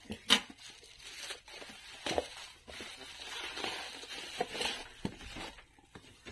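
Bubble wrap and thin plastic packaging crinkling and rustling as it is pulled off a cardboard box by hand, with a few sharp clicks and knocks from handling, the loudest about a third of a second in.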